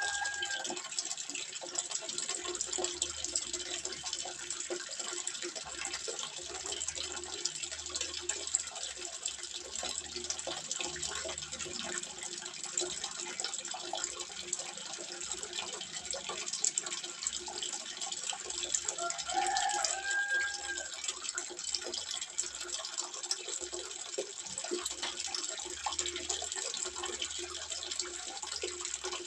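Water trickling and splashing steadily into a small fish pond, a continuous fine patter. A short pitched call is heard right at the start and again about twenty seconds in.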